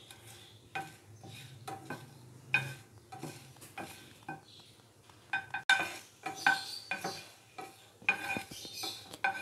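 Wooden spoon stirring whole dried red chillies in a dry non-stick frying pan while they dry-roast: irregular scrapes and knocks of the spoon on the pan with a light ringing, and the chillies sliding and rattling. The knocks come faster and louder about halfway through.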